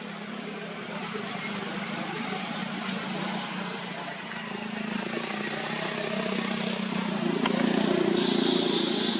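A vehicle engine running steadily and growing louder over several seconds, as if coming closer. A steady high-pitched buzz joins it near the end.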